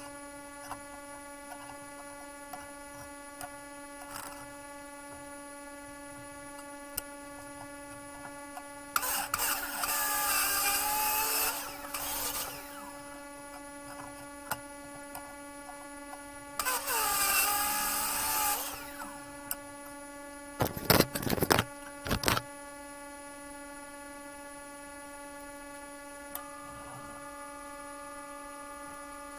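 Electric drill motor running steadily, with two spells of a bit cutting into steel plate, each a few seconds long with a wavering squeal, and a few sharp clatters about three-quarters of the way through.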